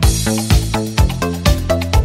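Background dance music with a steady, driving beat and bass line.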